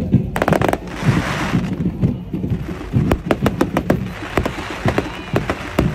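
Fireworks bursting overhead, a rapid, irregular string of sharp pops and crackles with a brief hiss about a second in.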